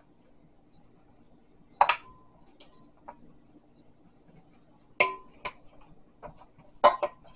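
Glass mixing bowls and a wooden spoon knocking together as cooked elbow macaroni is scraped from one glass bowl into another: a few sharp clinks with a short glassy ring, one about two seconds in and a cluster near the end.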